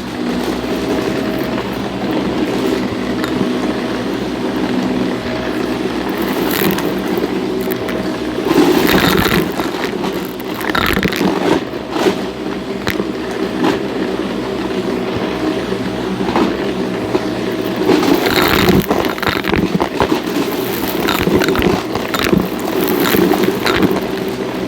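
Shark NV351 upright vacuum cleaner running with a steady motor hum, with bursts of crackling and rattling as debris is sucked up, loudest about nine and nineteen seconds in.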